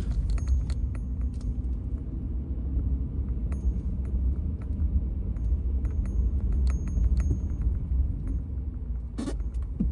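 Car driving slowly on a snow-covered road, heard from inside the cabin: a steady low rumble of engine and tyres, with scattered light clicks.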